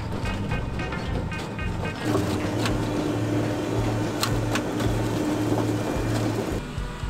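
A Brussels sprout harvester's stalk-stripping unit running with a steady mechanical hum. From about two seconds in it gets louder and carries a held low tone while a stalk is fed through, with a few sharp clicks in the middle.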